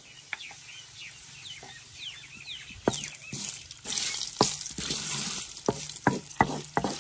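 Tadka of cumin seeds, whole dried red chillies and red chilli powder sizzling in hot oil in a steel pan, the cumin crackling. About three seconds in, the sizzle gets louder, and a wooden spatula stirs and clicks against the pan.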